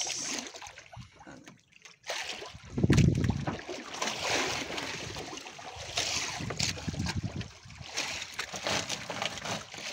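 Water sloshing and trickling beside a small wooden fishing boat, with a low thump about three seconds in.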